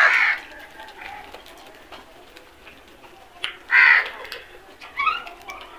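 House crows cawing: a loud harsh caw at the start, another about four seconds in, and a shorter broken call near the end, with faint clicks of beaks pecking grain on concrete in between.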